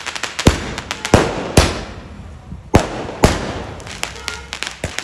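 Multi-shot fireworks cake firing from the ground: a run of sharp bangs at uneven intervals, about six loud ones with many smaller cracks between, each trailing off in echo.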